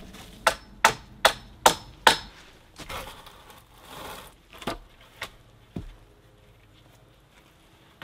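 Hatchet chopping into a thin log resting on a stump: five sharp strikes in quick succession, about two and a half a second. After them come a few lighter, scattered wooden knocks from slab-wood boards being handled.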